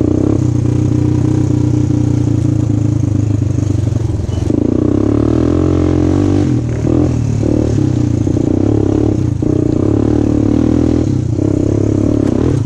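Single-cylinder 250 cc ATV engine running as the quad is ridden along a rough trail. The engine note changes several times as the throttle is opened and eased off, dipping briefly about two-thirds of the way through and again near the end.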